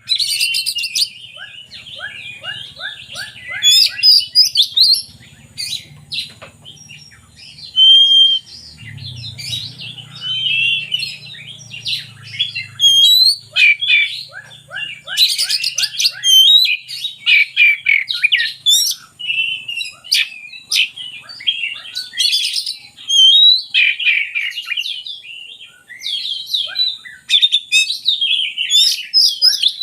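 Oriental magpie-robin (kacer) singing continuously: a fast, varied string of loud whistled phrases, trills and chattering notes, full of mimicked phrases ("gacor full isian").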